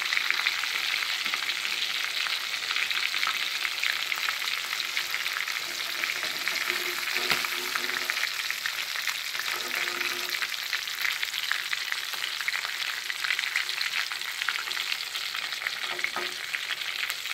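Breaded chicken pieces deep-frying in hot oil in a pan, a steady, dense sizzle and crackle.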